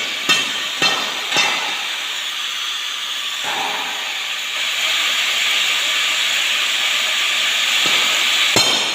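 A few sharp metallic knocks, then the steady hiss of a gas cutting torch burning.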